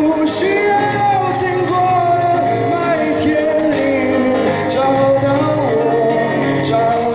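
A man singing while playing an acoustic guitar.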